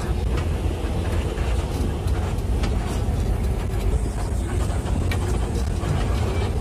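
A vehicle driving at steady speed: a continuous low rumble of engine and tyres on the road, with faint ticks and rattles over it.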